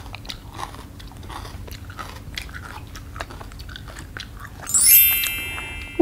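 Crunching and chewing of raw red bell pepper, a run of small crisp crunches. About five seconds in, a bright glittering chime sound effect sweeps upward and fades.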